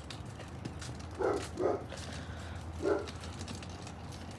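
A dog barking: two quick barks about a second in and a third nearly two seconds later.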